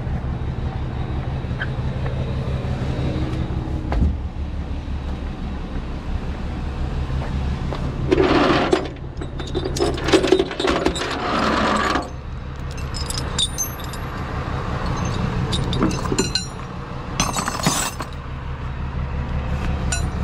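Rollback tow truck engine idling steadily. Through the second half, tow chains and J-hooks clink, rattle and scrape on the aluminium deck as they are handled.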